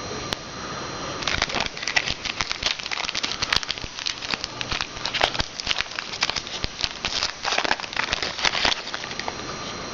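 Trading card pack wrapper being torn open and crinkled, a dense run of crackling that starts about a second in and stops near the end.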